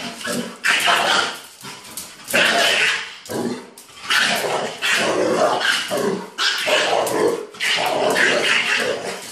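A mastiff and a chihuahua play-fighting, barking in rough bursts roughly once a second.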